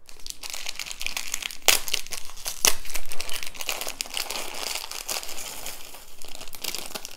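Thin clear plastic bead bag crinkling as it is handled and pulled open, with two sharper crackles about two and three seconds in.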